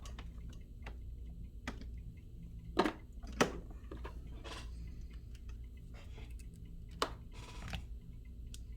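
Scattered small clicks and taps of tools and phone parts being handled during a repair, the two loudest a little under three seconds in and half a second apart, over a steady low hum.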